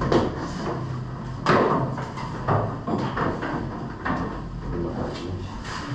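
Irregular knocks and thumps of tools and gear being handled in a steel boat's bilge, about six in the few seconds, the loudest about one and a half seconds in.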